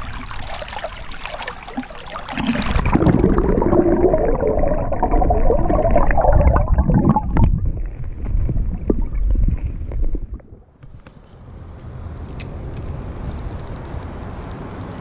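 River water splashing as a smallmouth bass is released. This is followed by several seconds of loud, muffled gurgling with a low rumble, which cuts off about ten seconds in, leaving a fainter steady wash of water.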